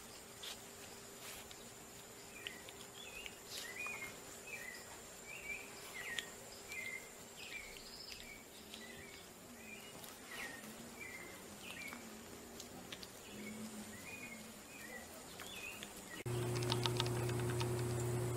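Baby sloths squeaking: a run of short, high chirps, one every half second or so. Near the end a louder steady low hum takes over.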